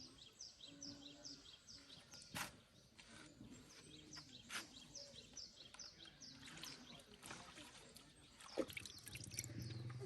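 Faint outdoor ambience of repeated short, high chirps, each falling in pitch, about three a second, with a few sharp clicks. A low steady hum sets in near the end.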